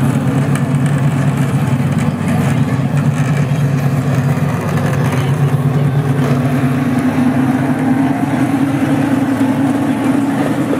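Engine of a ride-on miniature railway locomotive running steadily as it pulls a train of passenger cars past, its pitch rising a little about halfway through.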